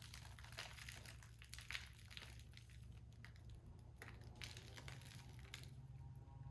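Faint crinkling and rustling of something being handled, a quick run of small crackles that stops about five and a half seconds in, over a low steady hum.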